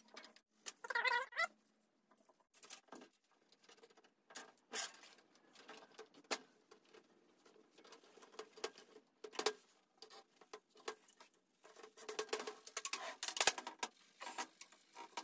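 Scattered light clicks, taps and scrapes of metal parts being handled as an AirDog fuel lift pump is fitted to its mounting bracket on a workbench, with a brief squeak about a second in and a busier run of clicks near the end.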